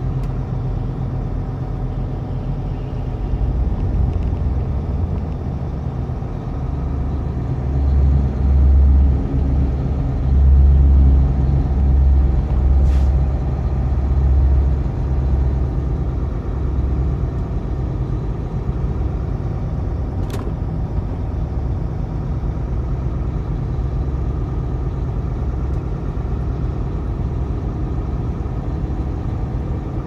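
Engine and road noise inside a truck cab as it drives slowly: a steady low rumble that swells louder for several seconds in the first half. Two brief faint clicks come in the middle.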